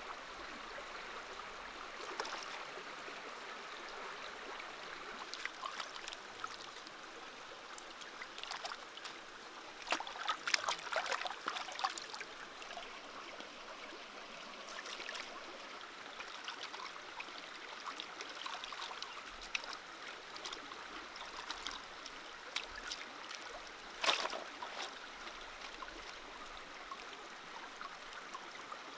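Shallow stream running steadily over rocks, with scattered brief splashes and knocks, a busier patch about ten seconds in and a sharp one about twenty-four seconds in.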